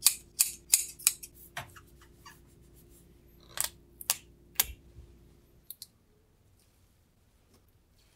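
Scissors snipping through a strip of double-sided tape: a quick run of short cuts in the first two seconds, then three more sharp clicks a little past the middle. It goes faint after that.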